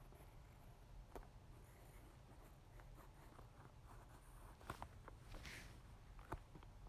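Faint pen-on-paper writing: light scratching strokes with scattered small taps and clicks, one brief scratchy stroke about five and a half seconds in.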